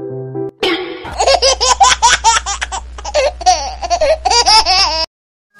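High-pitched laughter, used as a meme sound effect: a rapid run of short rising-and-falling cackles over a low steady hum. It starts just under a second in and cuts off abruptly about five seconds in.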